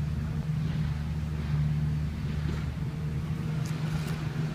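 Leaf-collection truck's engine running with a steady low drone.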